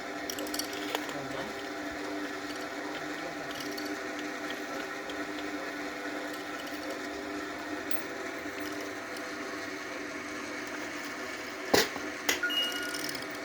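Well-pump pulling rig's hoist machinery running steadily with an even mechanical drone. Two sharp metallic knocks come near the end, the first the loudest.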